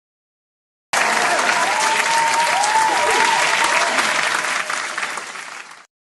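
Audience applauding: dense clapping that starts suddenly about a second in and cuts off abruptly near the end.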